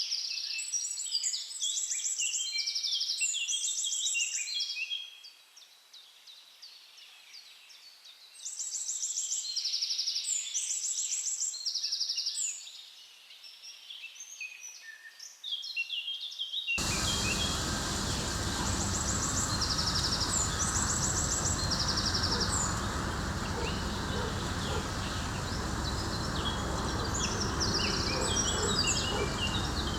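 Songbirds singing repeated chirping and trilled phrases in bouts, with short lulls. Over halfway through, a steady rushing background noise cuts in suddenly, and the birdsong carries on over it.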